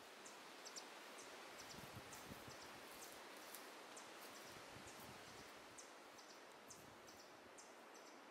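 Near silence: faint cloud forest ambience, a soft even hiss with many short, high chirps and ticks scattered through it.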